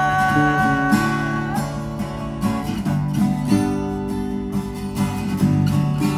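Acoustic guitars strummed and picked over an electric bass, playing an instrumental passage of a song.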